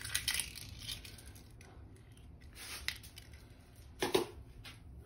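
A raw egg cracked open over a stainless steel bowl of shredded vegetables: a few sharp cracks and clicks of shell, with a louder knock about four seconds in.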